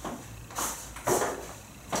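Footsteps: a few shoe steps scuffing on a hard classroom floor as a person walks along the chalkboard.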